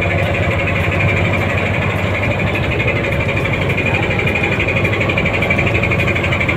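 A fishing boat's engine running steadily, with a rapid, even pulsing beat.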